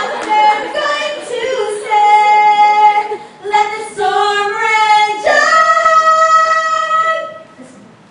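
A woman singing several long, held notes, the last one higher; the singing stops near the end.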